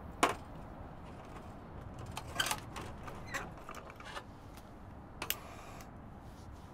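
A handful of separate sharp clicks and small knocks, one very near the start, a little cluster around the middle and another a little past five seconds, with a brief hiss after the last click.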